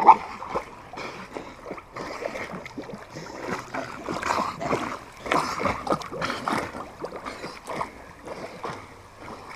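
A dog swimming in a garden pool: water splashing and sloshing irregularly as it paddles, with a sharp, loud burst right at the start.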